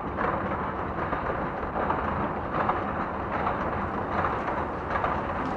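Steady rumbling machinery noise of the Métro, even in level with faint scattered ticks.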